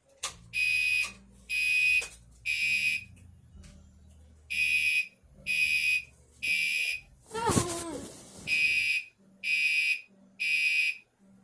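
Gentex Commander 3 fire alarm horn on its low setting, sounding temporal code 3: three short even beeps, a pause, and the pattern repeats three times. A sharp click comes just before the first beep, and a short loud cry with falling pitch comes about seven and a half seconds in.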